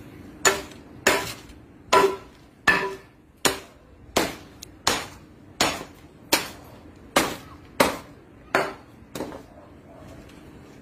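A sturdily made religious statue being smashed on concrete ground: about thirteen hard strikes at an even pace, each with a short ring, growing weaker near the end.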